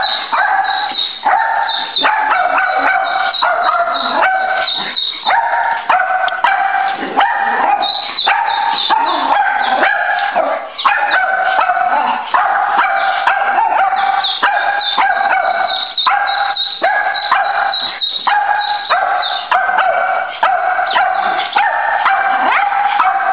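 Small terrier barking and yipping over and over, short pitched barks following one another almost without pause.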